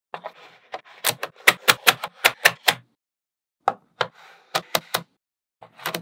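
Small magnetic balls clicking together as strips of them are snapped into place: a quick run of sharp clicks, about five a second, then a short pause and a few more.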